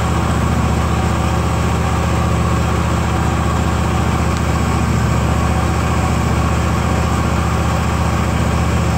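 Steady low mechanical hum of a running motor.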